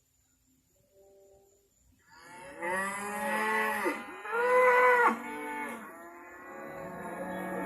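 Moo can toy mooing: two loud, drawn-out cow moos whose pitch swoops down and back up, starting about two seconds in, then a third moo building near the end.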